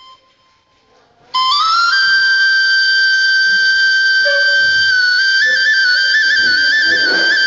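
Recorded flute music for the dance: after about a second of near quiet, the flute enters with a quick upward slide and holds one long note, then plays rapid trills and ornaments around it from about halfway in.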